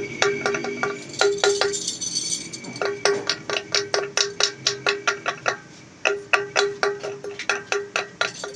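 Small hammer tapping rapidly on the bearing seat of a motorcycle's aluminum rear wheel hub, where a loose bearing has been packed with galvanized iron sheet shims. Quick runs of ringing metal taps, about five a second, with short pauses about two seconds in and past the middle.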